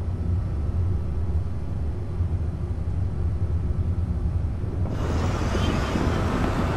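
A steady low rumble with little high-pitched sound in it. About five seconds in, the hiss and rumble of city street traffic comes in.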